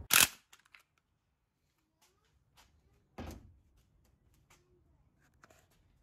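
Loose metal parts being handled on a manual transmission case as its detent bolts come out: a sharp loud clack near the start, a softer knock about three seconds in, and faint small taps and clicks between.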